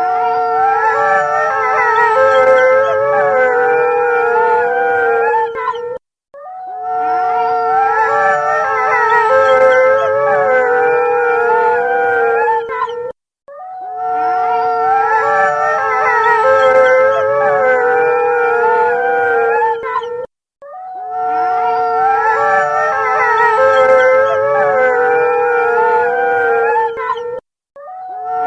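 A pack of wolves howling in chorus, several voices overlapping, one held steady while others slide up and down in pitch. The same seven-second recording plays four times over, each time broken by a brief silent gap.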